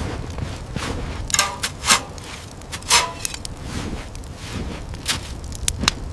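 A series of sharp, irregular impacts, about five, over a low steady rumble.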